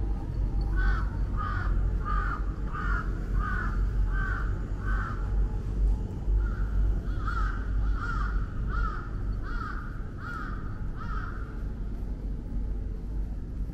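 A crow cawing in two runs of about seven caws each, roughly a caw and a half per second, with a short break between the runs. A steady low rumble of street noise runs beneath.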